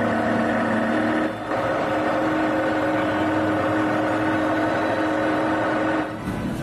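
Motorcycle engines running steadily inside a ferry's enclosed car deck, a level drone that changes abruptly about a second in and again near the end.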